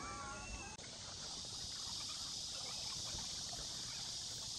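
Steady high-pitched insect chorus from the trees, an even drone that sets in abruptly about a second in, over faint outdoor background.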